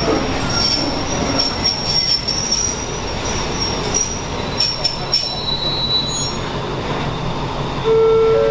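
Passenger train wheels squealing on the rails in a high, steady tone over the rumble of the moving train, with a few sharp clicks around five seconds in. Near the end, a station chime begins with its first clear notes.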